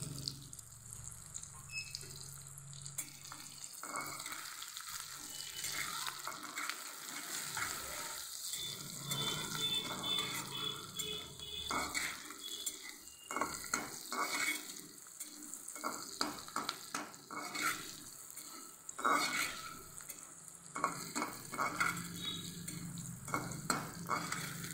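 Sliced onions frying in hot mustard oil in a kadai, a steady sizzle, with a steel ladle scraping and clinking against the pan as they are stirred, the clinks coming thicker after the first few seconds.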